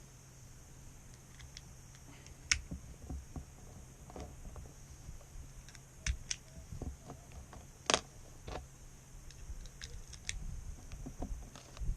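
Scattered light clicks and knocks, with two sharper, louder clicks about two and a half seconds and eight seconds in.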